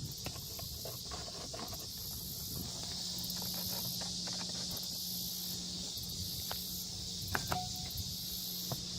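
Steady hiss of air from a car's ventilation blower, with a low hum and a few small clicks about seven and a half seconds in.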